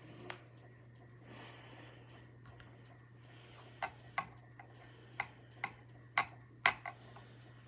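A run of light, sharp clicks and taps, about eight in three seconds in the second half, as small plastic makeup items are handled and set down, over a steady low hum.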